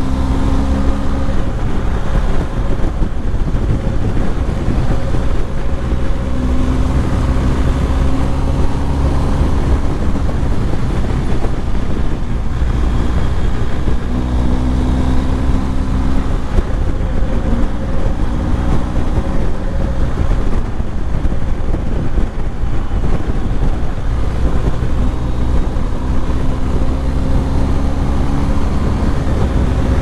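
BMW R 1250 GS boxer-twin engine running at highway speed, around 100 km/h, under steady wind rush. The engine note swells and climbs briefly several times as the throttle opens.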